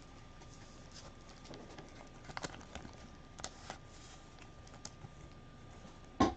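Small scattered clicks and ticks of trading cards and packaging being handled on a table, with one sharp knock just before the end.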